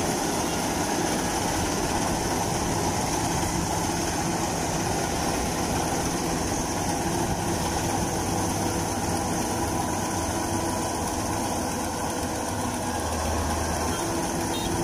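Kubota DC-93 rice combine harvester running steadily as it drives through the crop and harvests, its diesel engine and machinery making one even mechanical noise.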